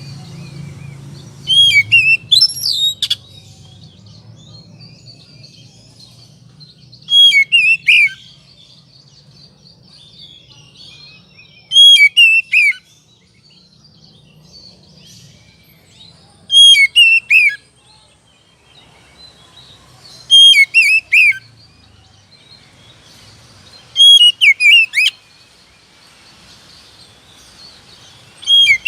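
Oriental magpie-robin in an agitated, fighting mood, repeating short, loud phrases of quick whistled sweeps about every four to five seconds, seven times. Fainter twittering fills the gaps between phrases.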